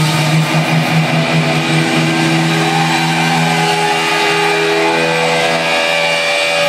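Electric guitar amplifiers left droning and feeding back as a song ends. A strong low note is held throughout, several steady higher tones sit over it, and new high whines swell in over the last couple of seconds.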